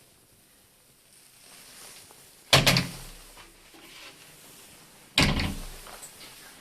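A door banging shut twice, about two and a half seconds apart, each bang with a brief rattle.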